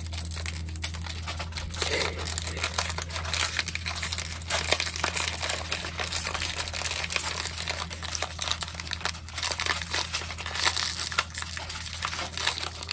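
Continuous close rustling and crinkling, like something rubbing over the microphone, with small irregular peaks over a steady low hum.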